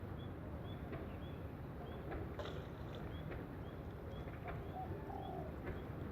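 Outdoor ambience: a steady low rumble, with a small bird's short, high chirp repeating about twice a second.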